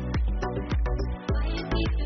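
Electronic background music with a steady beat, about two drum hits a second.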